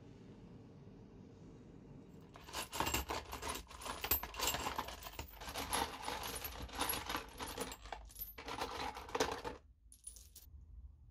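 Small steel bolts and nuts clinking and rattling against each other as they are tipped out of a plastic box onto a cloth. It starts a couple of seconds in, runs for about seven seconds and stops, with one short rattle near the end.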